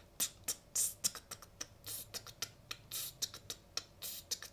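A person beatboxing a rapid run of short, sharp 'ts' hi-hat hisses, about four a second with a few held slightly longer. The tongue rests against the teeth while the lips are reshaped, an exercise to soften a sharp sibilant S.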